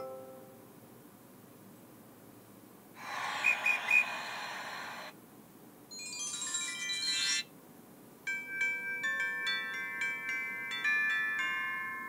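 Seasonal doorbell chime previews from the Amazon Alexa app, playing one after another. About three seconds in comes a short noisy burst with three brief shrill tones, then a quick run of high notes, and from about eight seconds a longer tune of clear chiming notes.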